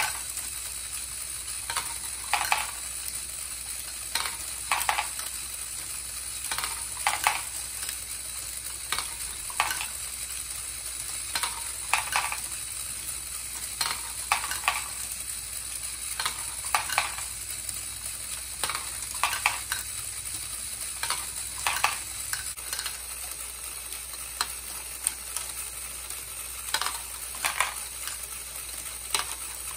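LEGO Great Ball Contraption rotating-platform module running: a steady high whir from its motor and gearing, with small plastic balls clacking as they roll and drop through the trays every second or two, often in pairs.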